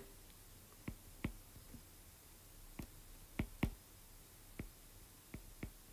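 Faint, scattered taps and clicks of a stylus on a tablet during handwriting, about eight in all, the loudest a close pair about three and a half seconds in.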